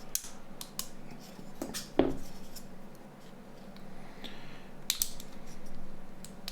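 Scattered light clicks and taps of small plastic parts as the keypad buttons are prised out of a Nokia 9210's keyboard part. The sharpest click comes about two seconds in, and two more come close together near five seconds.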